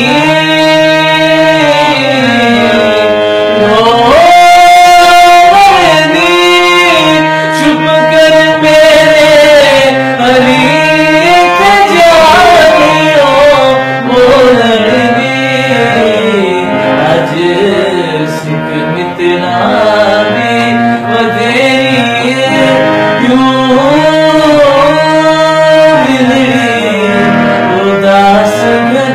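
Harmonium playing under a man's voice singing a Punjabi Sufi kalam, the voice moving in long, gliding phrases over the harmonium's held low notes.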